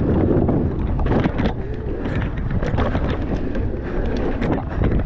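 Wind buffeting the camera microphone on a descending mountain bike, over the rumble of tyres rolling on a dirt trail and a wooden berm, with frequent short clicks and rattles from the bike.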